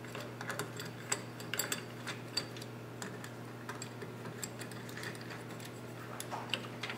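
Small metal screws being threaded by hand into an aluminium slider plate and handled with a hex driver: scattered faint metallic clicks and ticks over a steady low hum.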